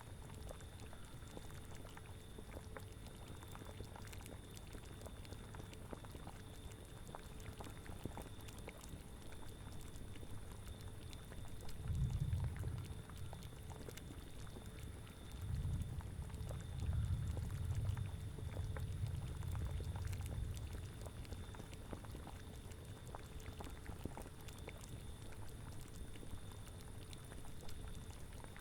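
Cauldron of liquid boiling, with many small bubbling pops, over a low wind rumble that swells briefly about twelve seconds in and again for several seconds after.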